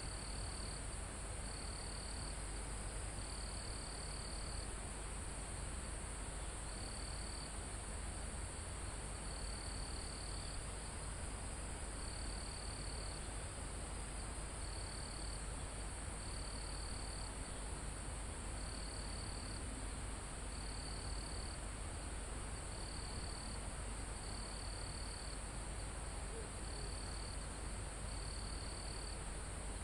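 Forest insect chorus: crickets and other insects keep up a steady high-pitched drone, while another insect trills in short bursts every second or two. A low, steady rumble of wind sits underneath.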